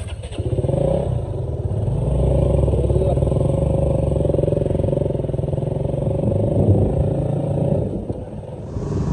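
Motorcycle engine pulling away and riding on: the engine sound builds over the first couple of seconds, holds steady, then eases off about eight seconds in.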